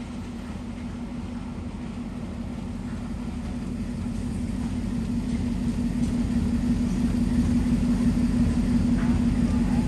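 Diesel locomotive of a departing passenger train running with a steady low hum that grows steadily louder.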